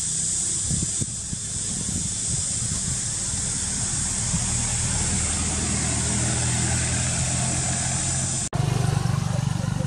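Steady outdoor ambience: a constant high hiss over a low, steady hum that grows stronger toward the middle. An abrupt cut about eight and a half seconds in is followed by a louder hum.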